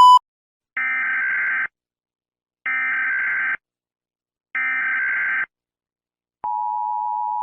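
Emergency Alert System (EAS) signal: three short bursts of SAME header data tones, about a second apart, then the two-tone EAS attention signal starts about six and a half seconds in and holds steady. A steady beep cuts off right at the start.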